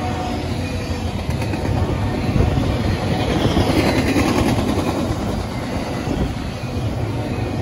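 Double-stack container well cars of a freight train rolling past, a steady rumble of steel wheels on the rails that swells a little in the middle.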